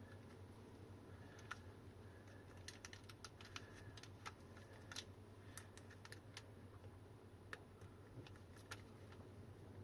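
Multimeter probes tapping against the battery pack's balance connector pins and circuit board: faint, irregular light clicks over a low steady hum.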